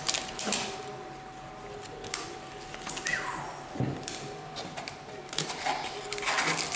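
Soft rustling and scattered light taps of trading cards and foil booster-pack wrappers being handled and laid down on a playmat.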